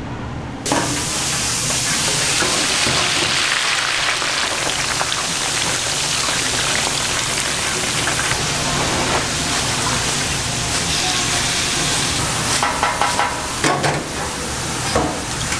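Food frying on a hot cooking surface, a loud steady sizzle that starts suddenly under a second in. There are a few short knocks near the end.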